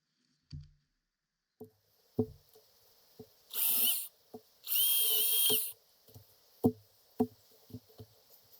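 Makita DUC405 cordless electric chainsaw given two short trigger pulls, its motor whirring up to speed and stopping, first for about half a second and then for about a second, with scattered knocks and clunks around them.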